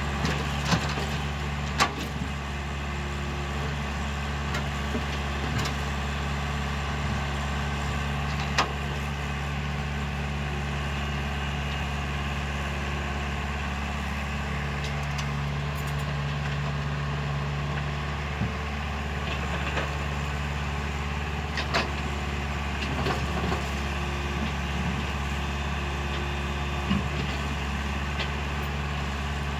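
Tracked excavator's diesel engine running steadily while it loads broken rock into a dump truck. Every few seconds comes a sharp knock of rock against the steel bucket or the truck's bed.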